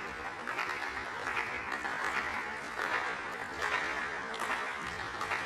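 Applause from members of a parliamentary chamber, a steady patter of clapping hands, played back slowed down.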